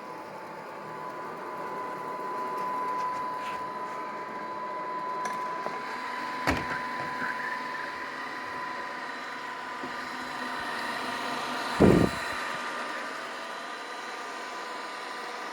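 Neatsvor X600 robot vacuum running, its fan motor giving a steady whine over a hum. There is a sharp knock about six and a half seconds in, and a louder, low thump near twelve seconds in.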